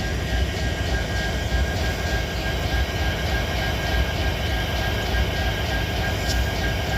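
An EMD SD70 diesel-electric locomotive, just started up and running at idle: its 16-cylinder two-stroke 710 diesel gives a steady, heavy low rumble with a thin steady whine above it. A faint short click sounds about six seconds in.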